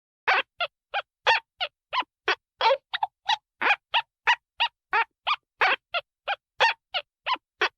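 Cartoon sound effect: a steady run of short, pitched, honk-like calls, about three a second and over twenty in all, each much the same as the last.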